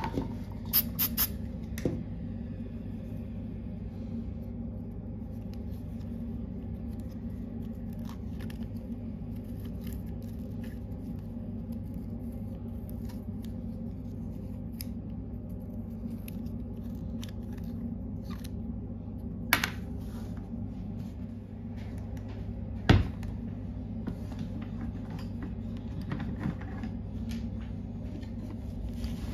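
Small laser-cut plywood hinge parts clicking and tapping as fingers fit and turn them, with a few sharper clicks, the loudest about two-thirds through, over a steady low hum.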